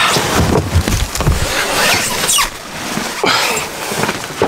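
A person crawling head first into a cramped boat compartment: body and puffer jacket scraping and rubbing against the hull, with thumps in the first second or so and a few short squeaks as he slides in.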